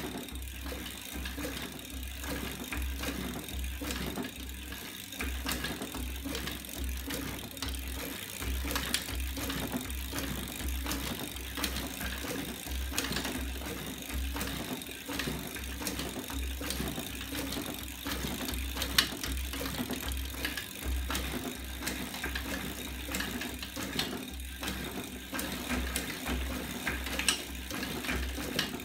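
Homemade magnet-driven linkage engine running and turning a bicycle wheel: rhythmic mechanical clacking and ticking from its swinging arms and rollers, over a low repeating thump and a steady hum.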